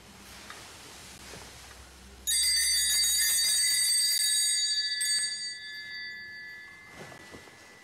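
Sanctus bells, a cluster of brass altar bells on one handle, shaken at the elevation of the chalice during Mass. They break into a bright jangling ringing about two seconds in, keep on for about three seconds, then die away.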